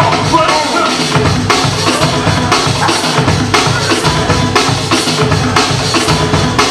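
DJ's music over a sound system: a loud, drum-heavy beat with a strong bass drum, about two drum hits a second.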